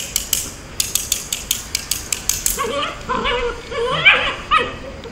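A quick, even ticking at about five or six a second, then a Belgian Malinois puppy gives a few short, high yips and whines, the loudest about four seconds in.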